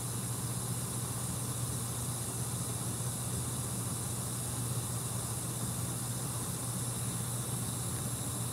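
Steady room tone: a constant low hum with an even hiss over it, unchanging and without any distinct events.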